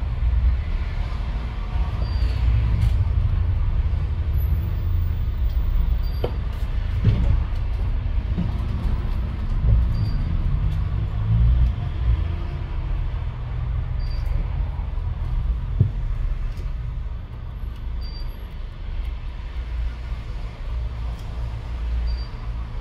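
Steady low rumble like road traffic, with a few faint clicks and a faint short high beep about every four seconds.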